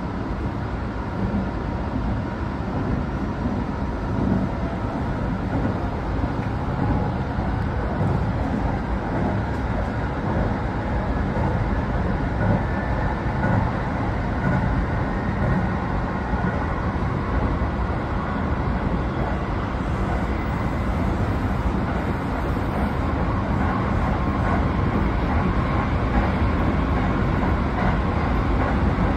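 Tsukuba Express electric commuter train running, heard from just behind the driver's cab: a steady rumble of wheels on rail with a faint high whine, getting slightly louder toward the end as the train gathers speed.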